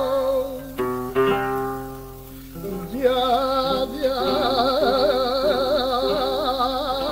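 Flamenco cante: a singer's wavering, drawn-out 'ay' quejío opening a malagueña, with a flamenco guitar accompanying. The voice stops after about a second for a short phrase of plucked guitar notes, then comes back about three seconds in.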